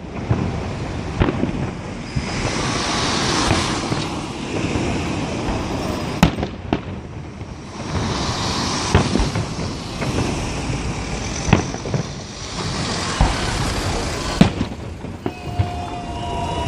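Fireworks salute: sharp bangs of shells bursting every second or few, over long stretches of dense crackling. A few steady tones come in near the end.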